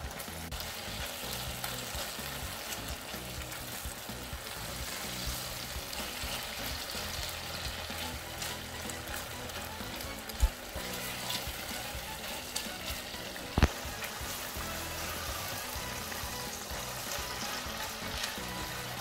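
Chopped tomatoes and tomato paste sizzling as they fry in butter in a stainless steel pan, stirred with a spatula. Two sharp knocks break the sizzle, one about ten seconds in and one about thirteen and a half seconds in.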